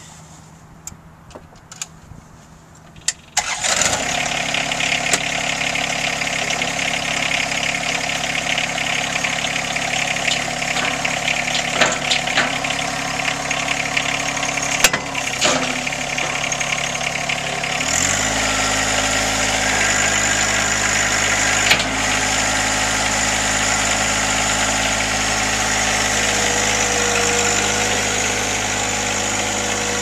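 John Deere sub-compact tractor's three-cylinder diesel engine starting after a few clicks, catching about three seconds in, then running steadily. About halfway through, its note steps up and gets deeper.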